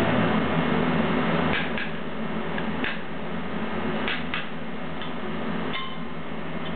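Metal spatulas cutting an okonomiyaki on a steel teppan griddle, the blades giving several sharp clicks and scrapes against the plate over a steady hiss.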